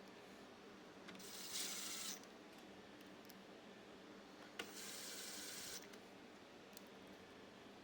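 Screws being driven into the pool cleaner's plastic body: two rasping bursts of about a second each, with a sharp click just before the second.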